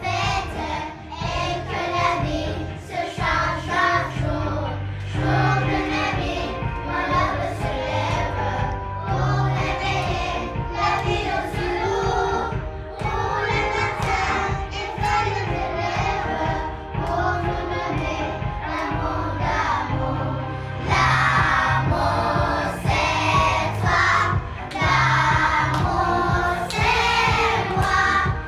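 A group of young children singing a song together over music with a steady beat, getting louder about two-thirds of the way through.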